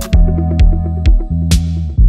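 Background electronic music: a drum-machine beat with thumping kicks and bright high hits over a held synth bass line, with one hit ringing out about a second and a half in.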